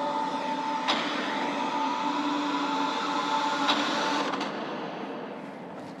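Lenovo Legion 5 Pro laptop's speakers playing back a video's soundtrack during a speaker test: a steady noisy sound with a held mid tone and two sharp clicks, about a second in and nearly four seconds in. It fades down toward the end.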